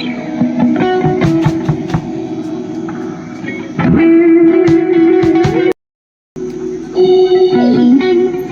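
Electric guitar being played during a sound check: single plucked notes and a held note bent upward. The sound cuts out completely for about half a second just past the middle, then more notes follow, one bent downward.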